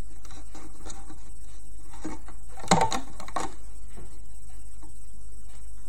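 Rubber loom bands being stretched and hooked onto the pegs of a plastic loom: light clicks and taps, with two louder sharp snaps about three seconds in, over a steady low hum.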